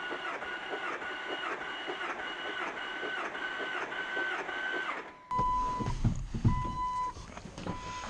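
A Jeep's six-cylinder engine cranked over on the starter with the throttle floored for a compression test, the starter's whine rising and falling about twice a second. The cranking stops about five seconds in. A beeping chime follows, sounding three times, along with a few thumps.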